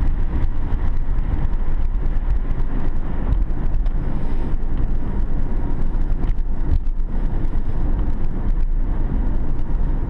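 Car driving on an icy road: steady low engine and tyre rumble, with scattered small crackles.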